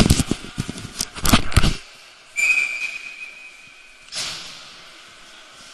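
A run of knocks and thumps in the first two seconds, then a hockey official's whistle blown once, a single shrill note held for nearly two seconds, followed by a brief hiss.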